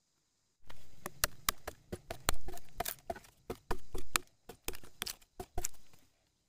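A machete chopping into a green bamboo tube: a quick, uneven series of sharp cuts and knocks, about three or four a second, stopping abruptly a little before the end.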